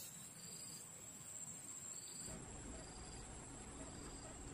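Insects in the swamp grass: a faint, steady high-pitched trill with short chirps repeating about once a second. A low background hiss grows louder about halfway through.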